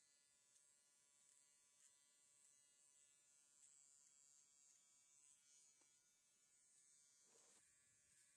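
Electric horse clippers running with a faint, steady buzz as they are worked around a horse's head. A brief muffled thump comes near the end.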